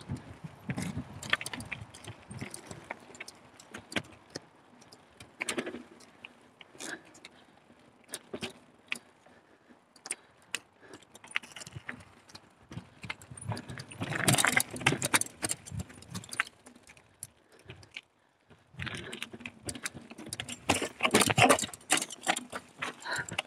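Mountain bike rattling and clattering as it is ridden over rough, rocky trail, with many sharp knocks and jangles from the frame, chain and parts. The clattering gets louder about halfway through and again near the end.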